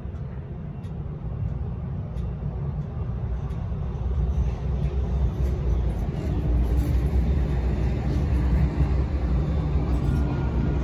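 Siemens-Duewag U2A light rail train approaching the crossing: a low rumble that grows steadily louder, building more strongly about four seconds in.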